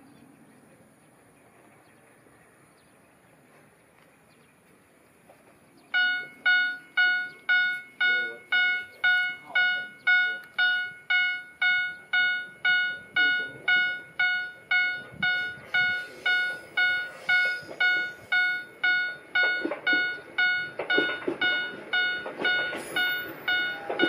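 Level crossing warning bell starts ringing about six seconds in, a steady ding repeating a little under twice a second. From about two-thirds of the way through, the rumble of an approaching TH2100 diesel railcar grows beneath the bell.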